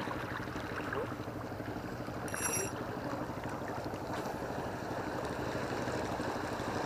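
Boat engine running steadily, a low hum under water and wind noise, with a short high chirp about two and a half seconds in.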